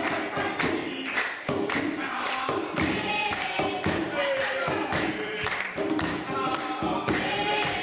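A group of voices singing together over a steady beat of thumps, about two a second.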